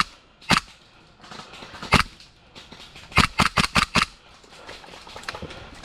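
Airsoft guns firing: sharp pops, a single shot about half a second in and another about two seconds in, then a quick string of about six shots between three and four seconds.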